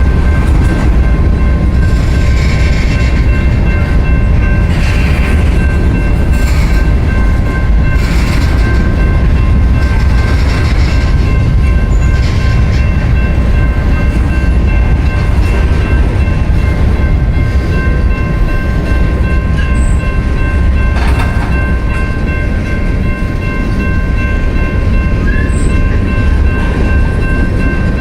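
Freight train rolling past close by: a heavy, steady rumble with irregular clatter of the cars, over a steady high-pitched whine.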